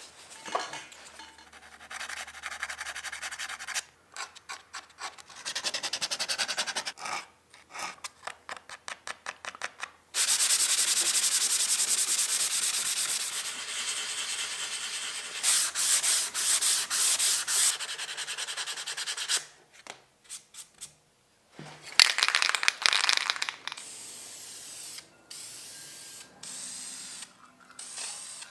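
Hand sanding: sandpaper rubbed in quick back-and-forth strokes over spot-putty filler on a PVC sign cabinet, heard in a series of short clips that cut in and out.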